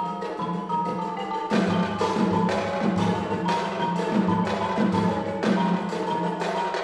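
Marimba playing a fast run of ringing notes with a percussion ensemble. About a second and a half in, loud percussion strikes join it in a steady beat of about two a second.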